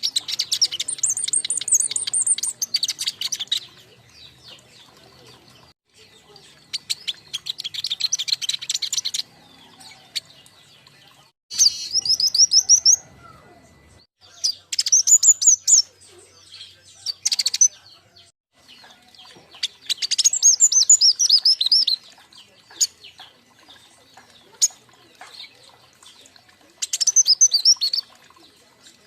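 A group of young king konin songbirds chirping and trilling in rapid, high bursts of one to four seconds, with short pauses between them.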